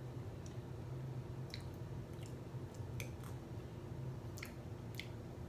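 Close-miked mouth sounds of eating ice cream off a spoon: wet smacks and about eight short clicks, scattered unevenly, over a steady low hum.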